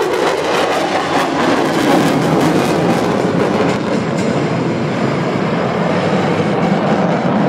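Loud, steady jet-engine noise from military fighter jets flying past.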